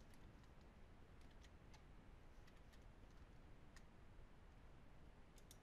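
Near silence: room tone with about a dozen faint, irregular clicks from someone working a computer.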